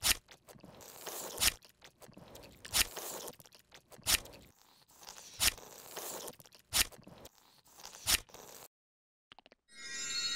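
Cartoon sound effects: a sharp crunching snip repeated seven times, about every 1.3 seconds, each trailing into a brief scraping rustle. Near the end a bright ringing chime starts.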